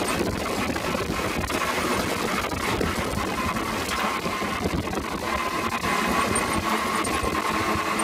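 Off-road buggy engine running at speed along a gravel dirt track, under a dense, steady rumble of wind and tyre noise.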